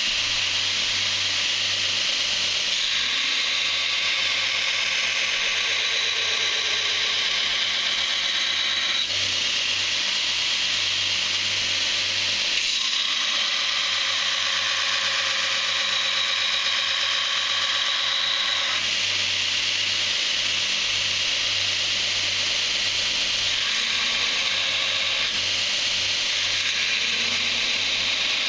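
Belt grinder running with D2 tool steel pressed against the belt: a steady grinding hiss with a whine whose tone changes every few seconds as the blade is worked.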